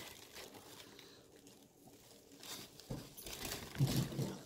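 Faint crinkling and rustling of shredded kraft-paper packing filler while a small glass jar is handled, growing busier in the second half. A short low-pitched sound comes just before the end.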